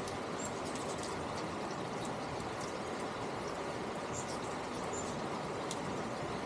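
Steady outdoor background noise with short, high bird chirps and ticks scattered through it.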